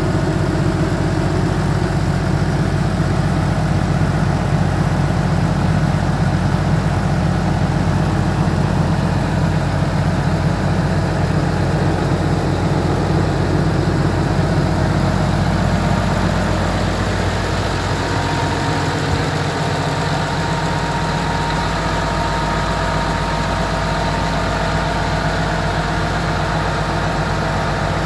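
Engine running steadily in a boat's engine room, a loud drone of steady low tones. About two-thirds of the way through it becomes slightly quieter and its tones shift.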